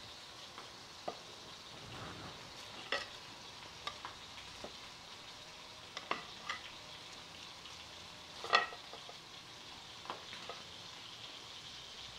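Chorizo frying in hot oil in a cazuela, a steady sizzling hiss. Over it come several light, sharp taps of a knife against a glazed clay plate as roasted poblano chiles are peeled and seeded; the loudest tap comes about two-thirds of the way through.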